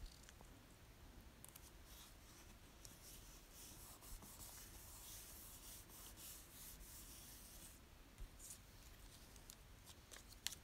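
Faint rubbing and rustling of fingers pressing and smoothing a paper picture card flat onto a journal page, with a few light paper ticks near the end.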